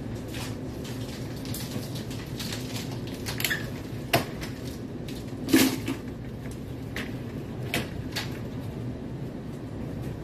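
Kitchen cleaning clatter: scattered knocks and clicks of things being handled, the loudest about five and a half seconds in, over a steady low hum.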